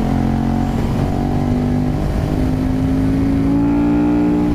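KTM 1290 Super Duke R's V-twin engine pulling in gear, its pitch climbing slowly and steadily as the bike accelerates, with a slight step about two seconds in. Wind rush on the helmet microphone lies underneath.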